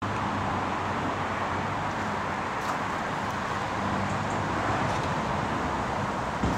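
Steady outdoor background noise with a low hum, like a distant traffic hum, with a brief low thump near the end.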